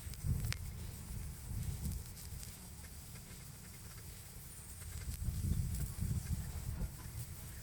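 Wood-stove fire crackling, with a few sharp pops, over a low rumble that swells and fades.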